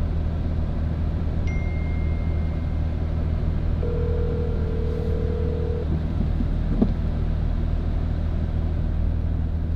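Phone ringback tone, the call ringing unanswered, playing through a car's cabin speakers: one two-second ring about four seconds in, over the steady low drone of the engine and road noise inside the cabin. A single short knock near the seven-second mark.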